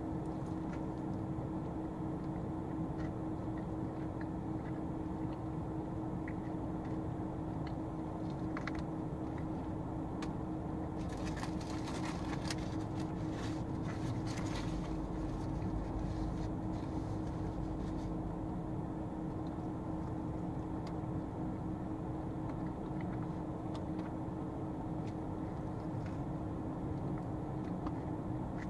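Steady low hum of an idling car heard from inside the cabin, with one steady tone running under it. A stretch of crackling paper-napkin rustle comes about eleven to fifteen seconds in.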